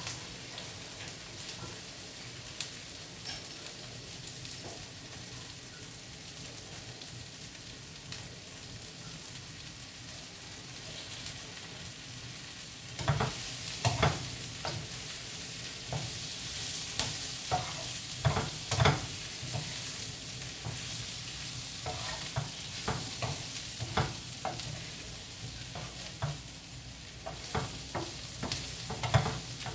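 Zucchini, onion and meat sizzling in oil in a nonstick frying pan, with scattered pops. About thirteen seconds in, a wooden spatula starts stirring and tossing them, with repeated knocks and scrapes against the pan.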